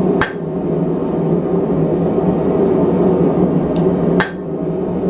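Two sharp hammer blows on a steel letter stamp, about four seconds apart, each with a brief metallic ring, stamping a letter into the forged handle. A steady hum runs underneath.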